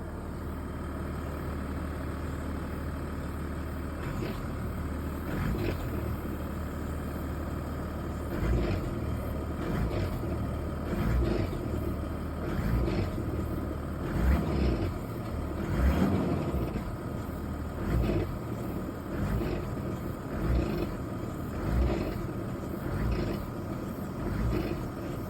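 Abnormal noise from a Mazda CX-60's transmission: a steady low hum with repeated knocks about every second and a half, starting about a third of the way in.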